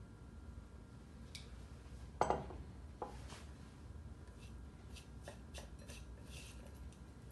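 A bowl set down on a wooden cutting board with a knock about two seconds in, followed by a smaller knock. Then scattered light clinks and taps from small metal prep bowls as garnish is picked from them by hand.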